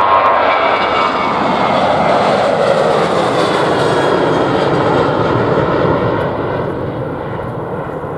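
Boeing 737 airliner's twin CFM56 turbofan engines at takeoff power as it lifts off and climbs away: a loud roar with falling whining tones, fading from about six seconds in.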